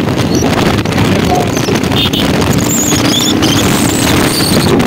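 Motorcycle running as it is ridden, its engine rumble mixed with wind buffeting the microphone.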